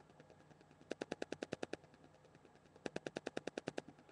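Two short bursts of faint, rapid, evenly spaced clicks, about ten a second and nine or ten clicks to a burst, the first about a second in and the second near three seconds in.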